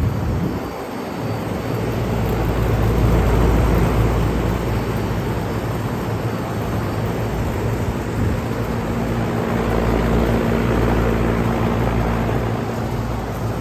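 Several Lennox air conditioner units running: a steady rush of fan noise over a low compressor hum, with a higher hum tone joining about eight seconds in.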